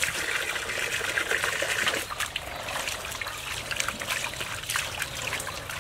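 Water trickling and dribbling, with scattered light crackles from about two seconds in.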